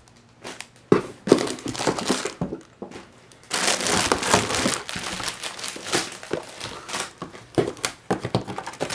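Plastic packaging, a black plastic bag and cellophane wrap, crinkling and rustling as it is handled. There are a few sharp crackles in the first second or so, then a denser stretch of crinkling through the middle.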